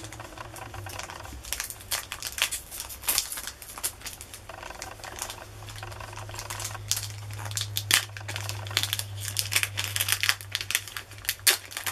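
Foil booster-pack wrapper of Japanese Pokémon cards crinkling and tearing as it is worked open by hand, in many irregular crackles, with a low steady hum underneath through much of it.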